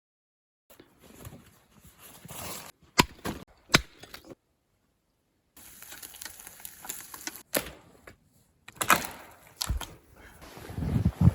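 A string of sharp knocks and cracks amid crunching and rustling, broken by short stretches of dead silence.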